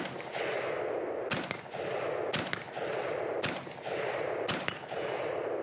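AR-style semi-automatic rifle with an Aero Precision Enhanced upper firing single aimed shots, five in all, about one a second.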